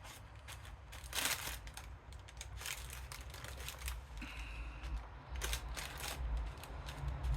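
Hand-work noises from greasing an outboard's propeller shaft: scattered small clicks, taps and rustles, a louder scrape about a second in and a brief faint squeak about four seconds in, over a low rumble.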